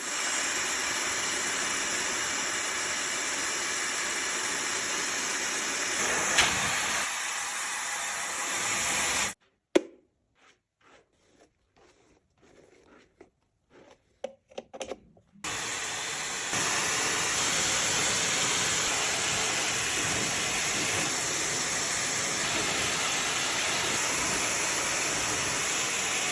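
Hair dryer running with a steady rushing blow and fan whine, switched off about nine seconds in. After several seconds of faint clicks and handling it is switched back on, and a second later it steps up to a louder setting.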